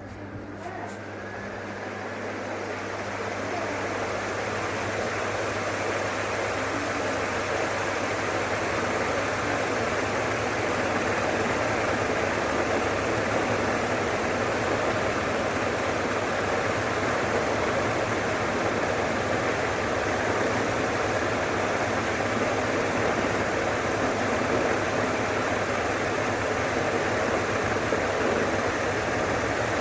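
48-inch ABC ceiling fan speeding up over the first several seconds, then running steadily at speed: a rush of air from its blades with a low, steady hum from the motor.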